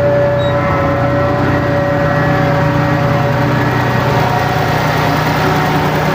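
A large engine running steadily at an even speed, with a low hum under a steady whining tone.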